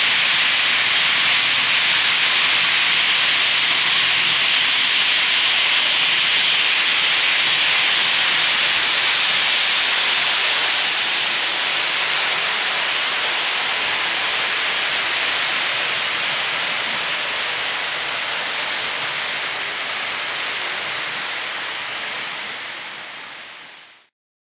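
Märklin model trains running on the track, a steady high hiss of rolling wheels that fades out near the end.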